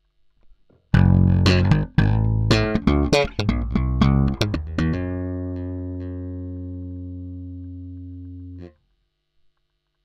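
Yamaha RBX270J four-string electric bass: about a second in, a quick run of plucked notes with sharp attacks, ending on one note that is held for nearly four seconds, fading slowly until it is cut off suddenly.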